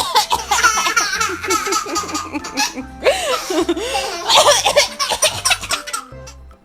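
Toddler laughing hard in repeated bursts of giggles, over background music with a steady low beat.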